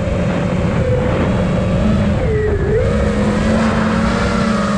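Brushless motors and propellers of a 5-inch FPV quadcopter (iFlight Nazgul Evoque 5 on a 4S battery) whining steadily in flight, over a rush of air. About halfway through the pitch falls as the throttle comes off, then climbs back.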